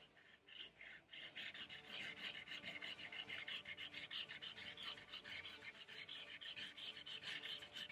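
A black drawing stick scribbling fast zigzags across paper: a quick, continuous scratchy rubbing made of many short back-and-forth strokes.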